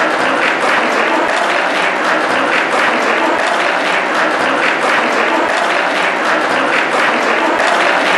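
Audience applauding steadily, welcoming a performer who has just been announced to the stage.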